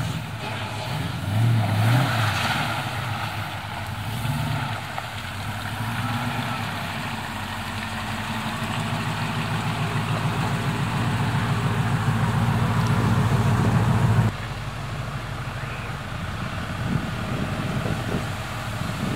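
Nissan GQ Patrol's engine working through a muddy, water-filled rut, its pulsing note growing steadily louder under load. About two thirds of the way through it cuts off sharply to a quieter engine running, with a few small knocks.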